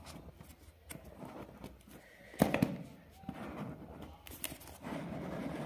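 Cardboard earbuds box being handled and opened by hand: light scrapes and small clicks, with a sharper tap about two and a half seconds in.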